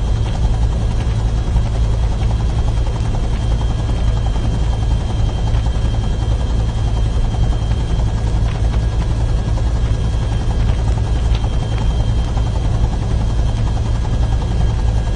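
Helicopter rotor and engine noise heard from inside the cabin: a steady, loud drone heaviest in the low end, with a thin steady high whine above it.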